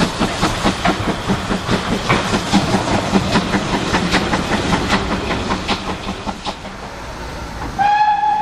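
Steam tank locomotive pulling away, its exhaust beats coming about three times a second and fading as it draws off. Near the end a steady high whistle-like tone starts suddenly.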